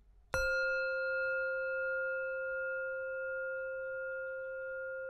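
A bell struck once, about a third of a second in, its tone ringing on with several overtones and fading only slowly.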